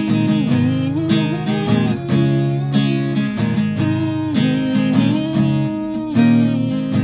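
Acoustic guitar with a capo, strummed steadily in a country-style song accompaniment.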